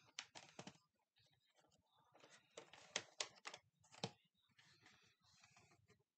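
Faint clicks, knocks and rustling of a VHS cassette and its case being handled and picked up, with the sharpest clicks about three and four seconds in.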